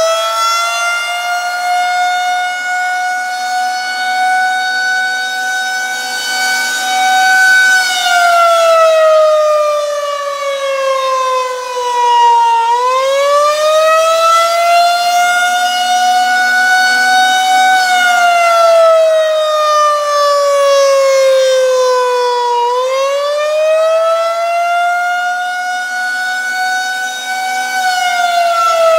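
Federal Signal 2001-130 rotating electromechanical siren sounding the attack (alert) signal. Its pitch holds high for several seconds, then slowly slides down and winds back up, twice, and begins sliding down again near the end.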